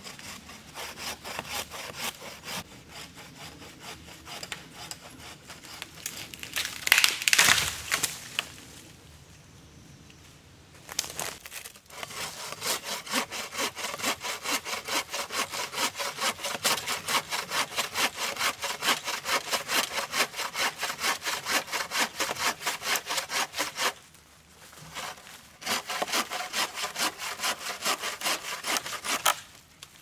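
Hand saw cutting through wood with steady back-and-forth strokes, about three a second, in several runs with short pauses. About seven seconds in there is a louder, longer rasping burst.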